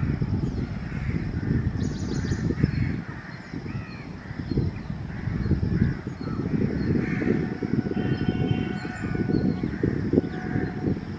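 Crows cawing again and again, over a steady low rumble.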